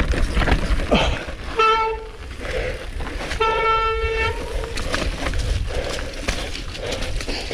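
Mountain bike disc brakes squealing in a steady, horn-like tone, briefly about a second and a half in and again for longer about three and a half seconds in, under hard braking on a steep descent. Underneath runs a steady rumble of wind and tyres on rock, with knocks and rattles from the bike.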